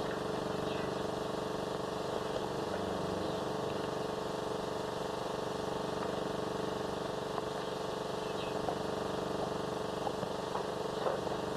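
Steady hum and hiss of an old 1930s film soundtrack, with only a few faint, brief sounds in it.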